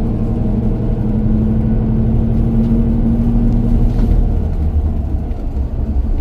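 Steady low rumble of a moving vehicle heard from inside, with a steady engine hum.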